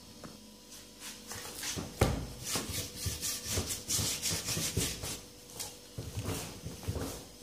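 Hands gathering a flour-and-water dough in a glazed earthenware bowl: a knock about two seconds in, then repeated pressing and rubbing strokes of palms and dough against the bowl's floury surface, a couple a second.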